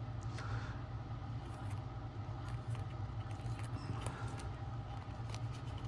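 Steady low background hum, with faint scrapes and light ticks of trading cards being handled and flipped.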